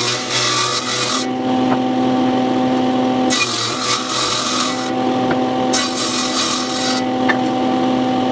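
Power tool motor running with a steady hum, biting into wood in three passes of a second or two each, the hum dropping under load during each pass.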